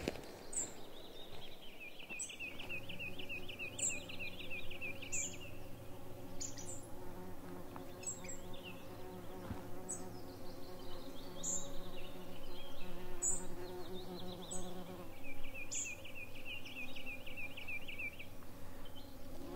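Mosquitoes whining steadily. A bird sings a fast trill twice, about two seconds in and again near the end, with short high chirps every second or two.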